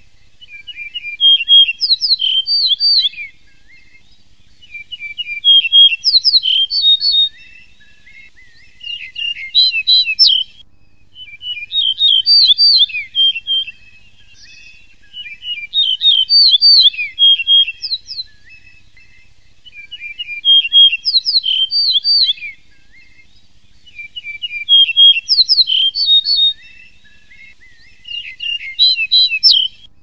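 Yellow-breasted bunting (Emberiza aureola) singing: a short phrase of quick, high notes about two seconds long, repeated eight times with pauses of about two seconds between.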